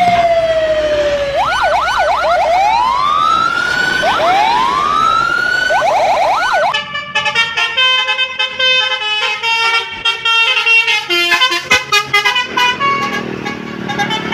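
Bus telolet horn of the Basuri type playing siren effects for about seven seconds: a long falling tone, quick warbles and rising whoops. It then switches to a fast tune of stepped horn notes.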